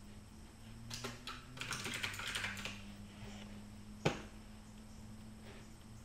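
Typing on a computer keyboard: a couple of keystrokes about a second in, then a quick run of keys, and one louder, sharper click about four seconds in. A low steady hum runs underneath.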